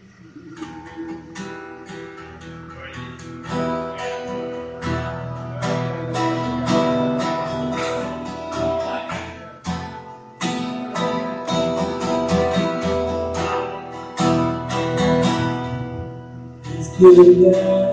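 Acoustic guitar strummed, a run of chords with a few short breaks, and a loud, brief sound about a second before the end.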